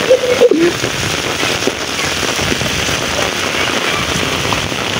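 Heavy rain pouring down onto a flooded lane, a steady hiss of rain splashing into standing water.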